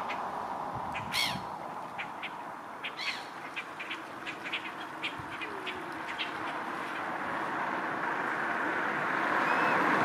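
Birds calling: two harsh calls in the first few seconds, then a run of short, quick calls through the middle, over a steady background rush that grows louder near the end.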